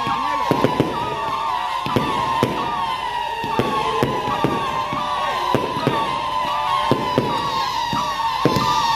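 Fireworks going off: sharp, irregular bangs and cracks, several every second, over continuous melodic music.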